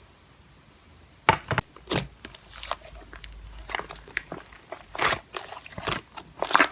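Slime being squished and pressed by hand, giving irregular crunchy clicks and crackles. It starts about a second in with a few separate clicks, then grows busier.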